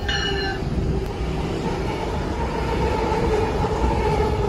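A group of diesel-electric freight locomotives running light passes close by, engines running with a steady low rumble and a droning tone. A brief high ring comes right at the start.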